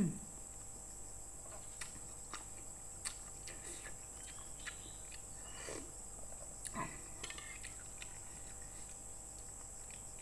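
Close eating sounds: misua noodles and soup slurped from a fork and spoon, with soft chewing and a few light clinks of cutlery on a plate. The slurps come about six and seven seconds in.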